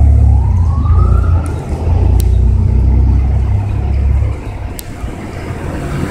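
Fire truck siren sweeping down and then up once more, fading out within the first second and a half as the apparatus pulls away, over a strong low rumble that drops off about four seconds in.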